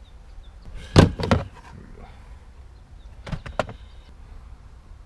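Sharp plastic clicks and knocks from handling the car's trunk fuse panel and its parts: a loud cluster about a second in and a quieter group of clicks a little past the middle.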